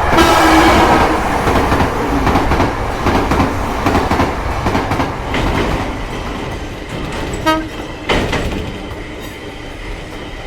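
Train sound effect: a horn blast as it starts, then rushing, rattling wheel noise that slowly fades as the train passes. A short pitched toot comes about seven and a half seconds in.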